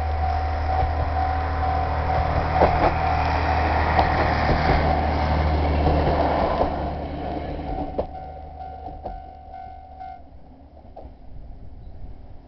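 A diesel railcar passing over a level crossing: low engine rumble with clicks of wheels over rail joints, fading away after about six seconds. The crossing's warning bell rings in quick steady repeats throughout and stops about ten seconds in.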